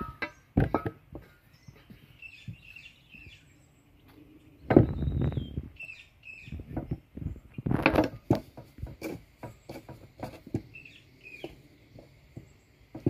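Hands working soft yeast dough with a knife on a floured wooden board: scattered knocks, taps and scrapes against the wood. There are two louder noisy bursts, about five and eight seconds in, while small birds chirp faintly in the background.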